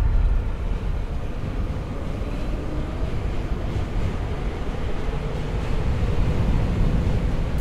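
Steady low rumbling noise with no distinct tones or hits, growing a little louder about six seconds in.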